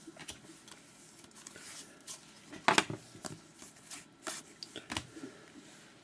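Trading cards being handled and set down: scattered light taps and sliding, the loudest tap about two and a half seconds in.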